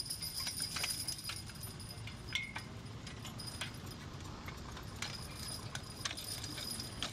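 Metal harness hardware and the iron of a horse-drawn riding sulky plow clinking and jingling irregularly as the draft-horse team pulls it through the soil, over a low steady rumble.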